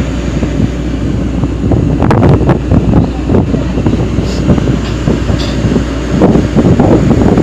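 Wind buffeting the phone's microphone, a loud low rumble with a few sharper gusts about two seconds in.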